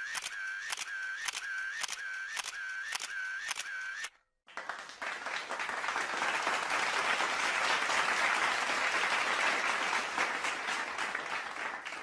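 Camera shutter firing in a regular series, about two clicks a second, stopping about four seconds in. After a short gap, a crowd applauding, swelling and then fading near the end.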